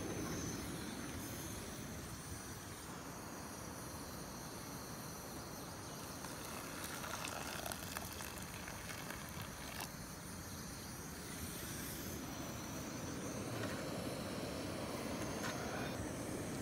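Camp stove burning steadily under a pot of water at a rolling boil, a low even roar. About seven or eight seconds in, hot water is poured into a pot.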